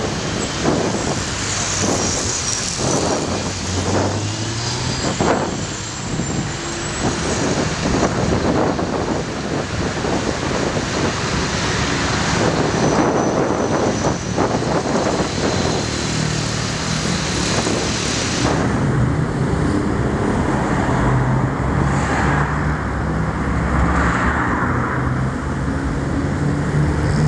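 Road traffic on a busy multi-lane avenue: cars and buses passing in a steady wash of tyre and engine noise. About two-thirds of the way through a deeper engine hum comes to the fore.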